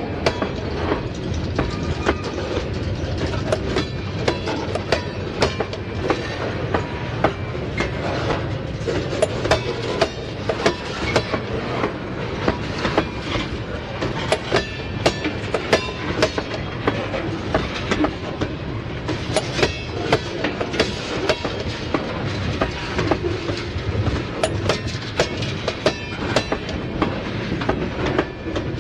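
Freight train of tank cars rolling past close by: a steady running noise with a dense, continuous stream of wheel clicks over the rail joints.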